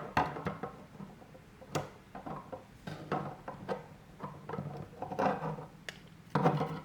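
3D-printed plastic parts clicking and knocking against each other as they are handled and pushed together onto rods, in a string of irregular sharp ticks.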